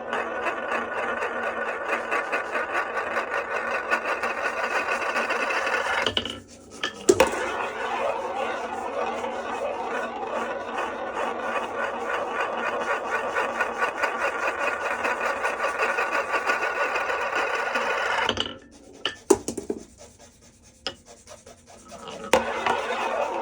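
Glass marbles rolling along a HABA wooden marble run, a continuous fast rattle. It drops out twice, about six seconds in and again near the end, with sharp clicks as marbles land before the rolling picks up again.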